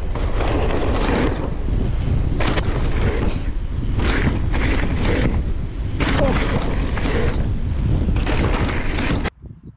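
Wind buffeting an action camera's microphone while a mountain bike rolls fast over a wet dirt jump track, with tyre noise and knocks and rattles from the bike over the bumps. It cuts off abruptly near the end.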